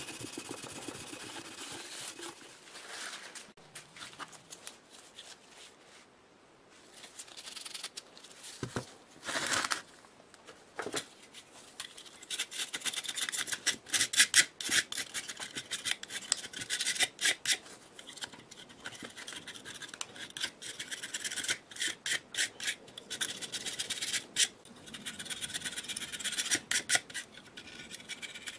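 Rasping, scraping strokes of hand abrasive work on the old air compressor's metal, quick and irregular, coming thick and fast through the second half.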